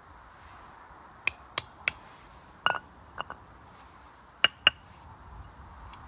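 Camp cookware clinking: about eight sharp clinks in small groups, a few of them ringing briefly.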